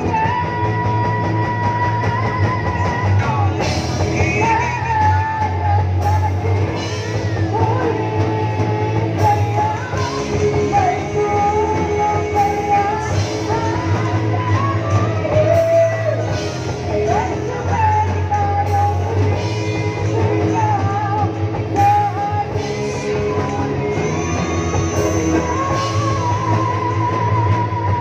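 Student rock band playing live: a singer over electric guitars, heard through the stage PA speakers.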